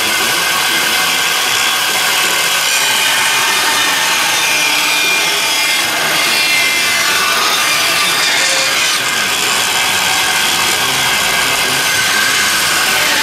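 Woodworking tools sawing and rubbing on timber, giving a continuous, steady noise with no breaks.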